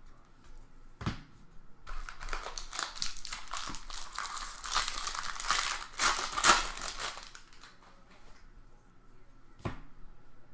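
Foil wrapper of a trading-card pack crinkling and tearing as it is opened, for about five seconds with a sharp crackle near the end of it. A single click comes before it and another near the end.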